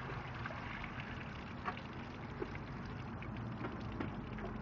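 Thick epoxy pile grout poured from a small pail into water, with a few faint soft splats, over a steady low hum.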